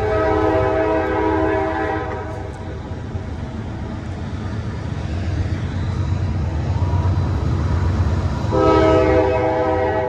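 Train horn blowing two long chord blasts, one lasting about two seconds at the start and another starting about a second and a half before the end, over a steady low rumble.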